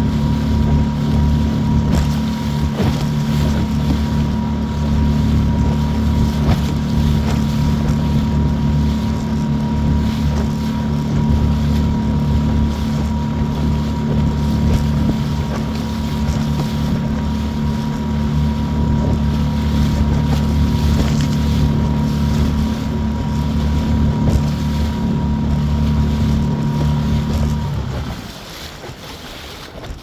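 Small fishing boat's motor running steadily under way across choppy water, with wind buffeting the microphone. Near the end the motor cuts off, leaving only wind and water.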